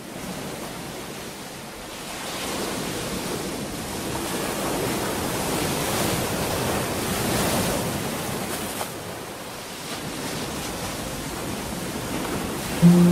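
A rushing wash of noise that swells and ebbs like surf, as the intro to a song. A plucked acoustic guitar note comes in at the very end.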